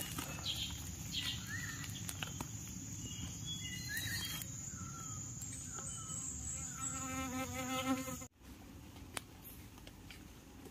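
Forest insects droning steadily on a high note, with short chirping calls over them. The sound breaks off abruptly about eight seconds in, leaving a quieter background.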